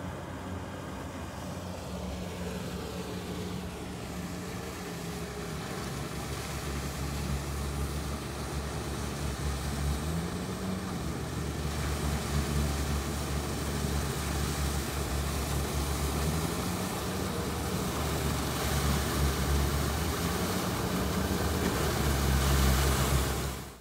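Sherp amphibious ATV's engine running under load as its huge tyres churn through swamp water, with the splashing of thrown-up water. The engine pitch rises and falls a few times, and the sound grows louder toward the end.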